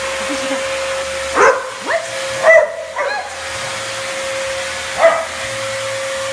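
Dyson cordless stick vacuum running with a steady high whine while an Airedale terrier barks at it about five times, four close together in the first half and one about five seconds in.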